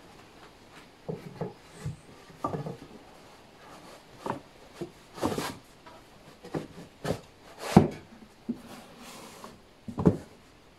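Pine and plywood box pieces being handled and set in place by hand: irregular knocks and scrapes of wood on wood, the loudest about eight seconds in and near the end.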